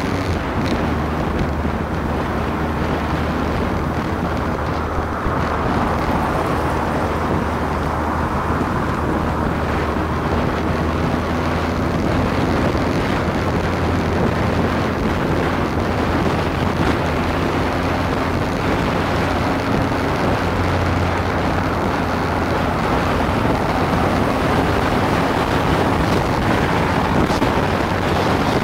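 Motorcycle riding at a steady cruising speed: a constant engine drone under heavy wind noise on the microphone.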